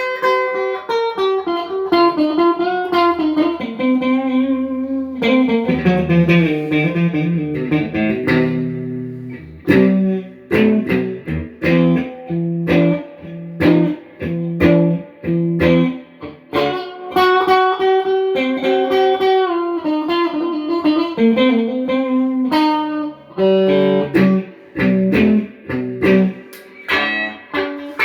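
Partscaster electric guitar played with the pickup selector in the in-between position: a continuous run of plucked single notes and chords.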